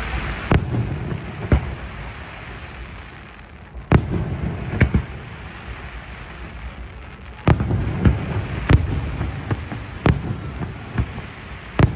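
Fireworks display: shells bursting in about nine sharp bangs at irregular intervals, with a low rumble and crackling between them. Some of the strongest bangs come about four seconds in, around seven and a half seconds in, and near the end.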